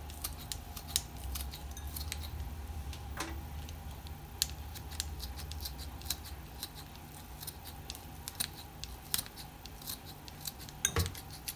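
Kitchen scissors snipping a red chili pepper: a string of short, sharp snips at irregular intervals, over a low steady hum.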